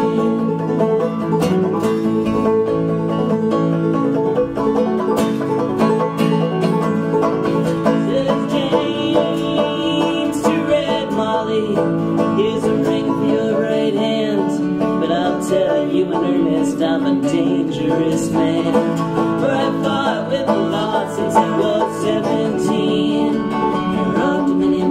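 Banjo picked together with a strummed acoustic guitar, playing a folk song live.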